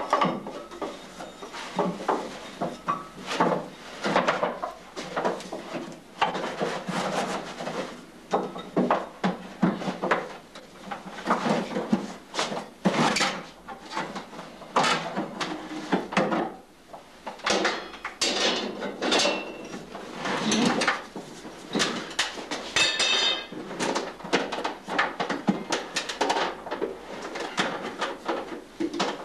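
Cooper driving hoops down onto a wooden barrel with a hammer and hoop driver: repeated, irregular knocks of hammer on driver and hoop, with the wooden staves clattering and shifting.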